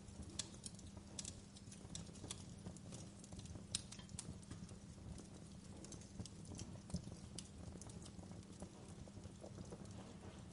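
Fireplace crackling: irregular sharp pops and snaps over a low steady rumble of the fire.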